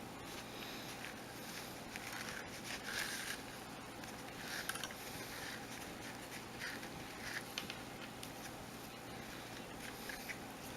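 Hemp cord rustling and scraping as square knots are tied by hand on a macrame board: soft, irregular strokes over a faint steady hum.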